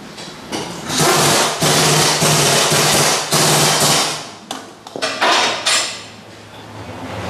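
A workshop power tool running in three bursts of about a second each, with a steady low hum under a loud rattling hiss, then a few sharp metallic knocks.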